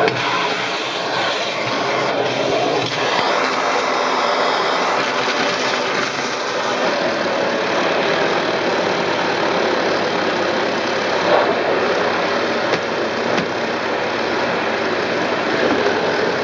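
Philips FC8578/69 Performer Active bagged cylinder vacuum cleaner running steadily under suction, with a short knock about eleven seconds in.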